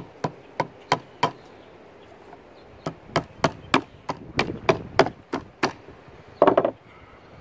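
A hammer striking in quick, even taps, about three a second, driving in the nails of electrical-cable clamps that hold the barrel to a wooden stock; a short run of strikes, a pause of about a second and a half, then a longer run of about ten. Near the end comes a short, rougher clatter.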